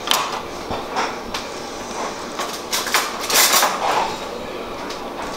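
Kitchen knife knocking on a wooden cutting board and being set down, with a few separate knocks early on and a denser run of kitchen clatter about three seconds in.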